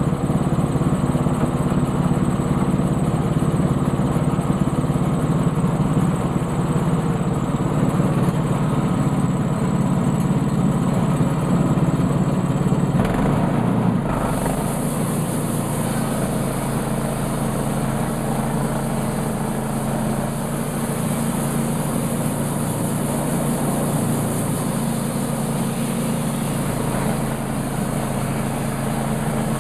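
Sawmill's small engine running steadily under load while milling a black walnut log. The sound changes about fourteen seconds in, with more high hiss after that.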